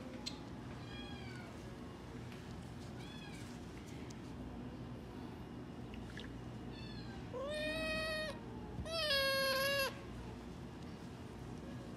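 A kitten mewing: a few faint short mews, then, about two-thirds of the way through, two loud drawn-out meows of about a second each. It cries out while antiseptic is dabbed on a bite wound on its head.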